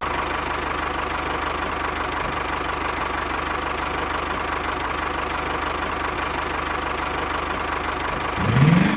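Small tractor engine idling steadily, with a fast, even pulse. Just before the end, a low rising cow moo begins.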